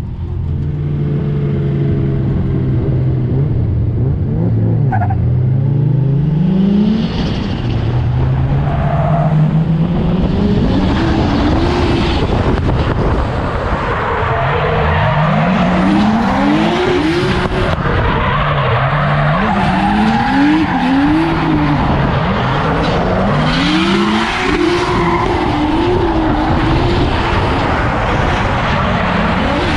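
Onboard sound of a drift car: the engine runs low at first, then revs hard in repeated rising sweeps as the car is driven sideways, with tyres squealing and skidding under it.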